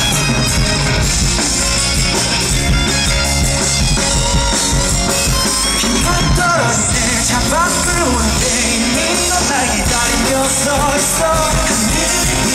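Live rock band playing loud and steady, with drums and electric guitar. In the second half a melodic line slides up and down in pitch.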